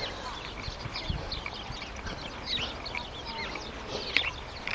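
Small birds in a bush chirping, many short high calls scattered and overlapping throughout.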